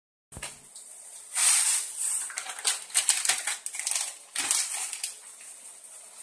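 Plastic packet of dried brown rice noodles crinkling and crackling as it is handled and opened, with a few dull knocks as the dried noodle block goes into a stainless-steel wok.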